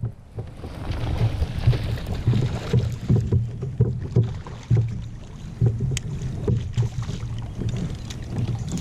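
Wind rumble and irregular low thumps of handling noise on a kayak-mounted microphone while a hooked largemouth bass is fought to the side of the kayak, with a hiss of splashing water about a second in.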